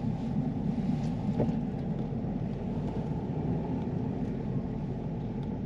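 Steady drone of a vehicle driving along, engine and road noise heard from inside the cabin.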